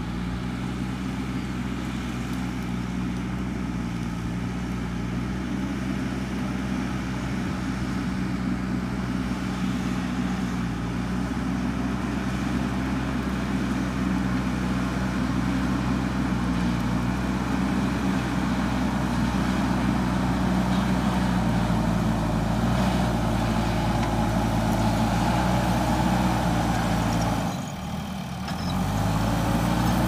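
JCB 3DX backhoe loader's diesel engine running steadily under load as its front bucket pushes soil and brush, growing gradually louder as the machine comes closer. The sound dips briefly near the end, then returns.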